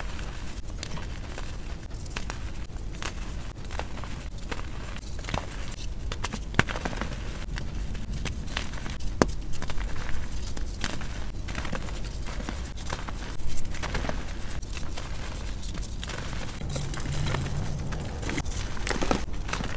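Hands crushing and crumbling gym chalk chunks and soft chalk reforms: dry crunching full of small crackles, with a powdery rustle as the crumbled chalk is pressed and sifted between the fingers.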